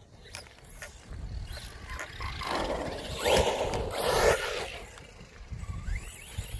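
Radio-controlled off-road car driven hard, its electric motor whining up and down in pitch with the throttle over tyre noise, building to its loudest around the middle and then fading as it moves away.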